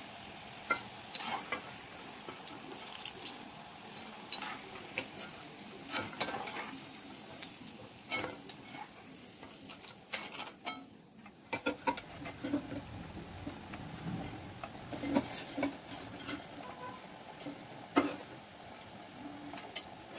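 Oil sizzling as cauliflower pakodas deep-fry in a kadai, with sharp clinks and scrapes of a metal slotted spoon against the pan and a steel bowl as the fritters are lifted out. The sizzle thins briefly about halfway through.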